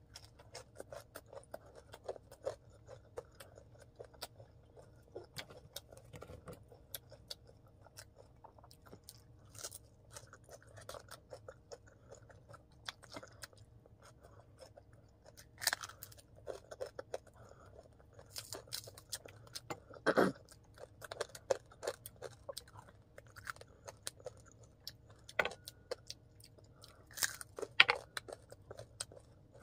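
Close-up chewing and crunching of crispy fried chicken and pork, a steady run of small crackles and wet mouth sounds with a few louder crunches around the middle and near the end.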